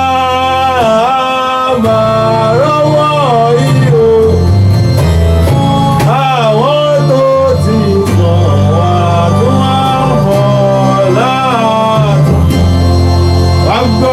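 Yoruba gospel music: a sliding, ornamented melody line over a steady bass, with singing.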